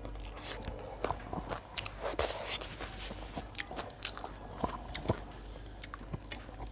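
Close-up chewing and biting of a mouthful of food, with many short, wet mouth clicks scattered through it.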